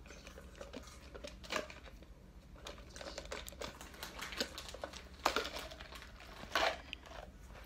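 Quiet room with faint, scattered short clicks and rustles.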